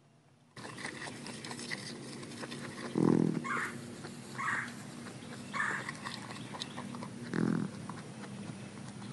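Patagonian maras (Patagonian cavies) sniffing and eating close to the microphone, with many small clicks. Two short low grunts come about three and seven seconds in, and three short higher-pitched calls fall between them.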